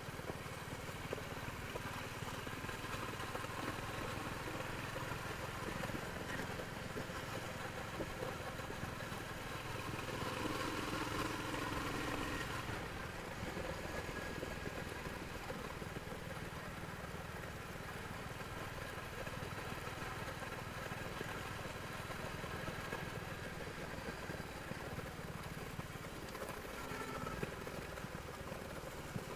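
Royal Enfield Hunter 350's single-cylinder engine running through its stock exhaust, a steady motorcycle engine sound that grows louder for a few seconds about ten seconds in.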